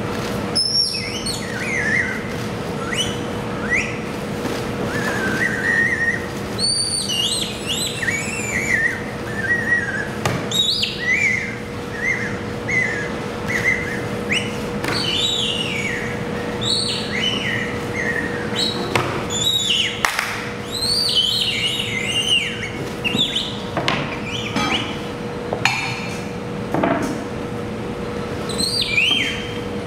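Birds chirping and whistling: many short, quick calls, a lot of them gliding down in pitch, over a steady hum.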